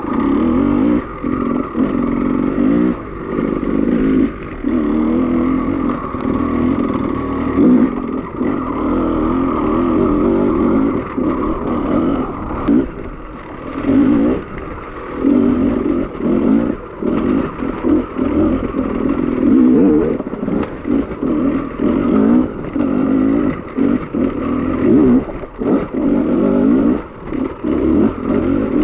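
Beta enduro motorcycle engine revving up and down as the rider works the throttle over rocks and up a wet stream bed, with many short throttle cuts between bursts of revs.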